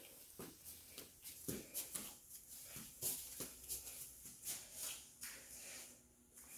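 Footsteps at a walking pace, about two a second, with light rustling and knocks from a handheld phone camera being carried.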